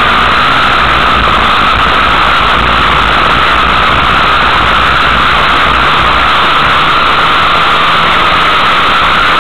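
Loud, steady engine noise of a vehicle heard from on board, with no rise or fall in pitch; a low rumble underneath drops away about six seconds in.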